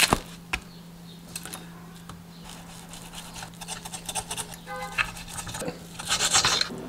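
Kitchen knife cutting raw steak against a stone countertop: soft sawing and scraping, with small taps of the knife and fork. Plastic wrap crinkles at the very start. A louder burst of handling and cutting near the end, all over a faint steady hum.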